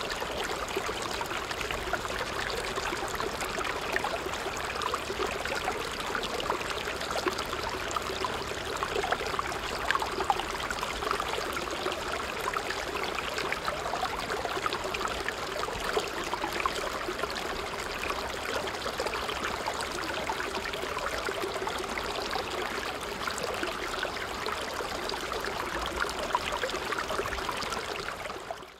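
Steady rushing, trickling noise like a flowing stream, thick with fine crackles, running evenly without pauses and then cutting off suddenly.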